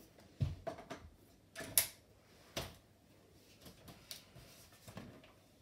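Front wheels being pushed onto an Uppababy Cruz V2 stroller's chassis: a handful of plastic clicks and knocks as they snap into place, the sharpest a little under two seconds in.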